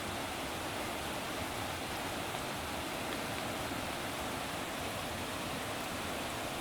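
Steady rush of running water, an even noise with no swells or breaks.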